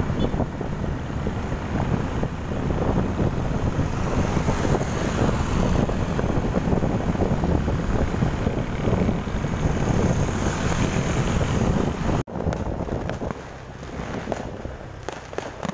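Wind buffeting the microphone over road and traffic noise while riding a motorbike along a city street. About twelve seconds in it cuts to a quieter scene with a few faint, sharp pops of distant fireworks.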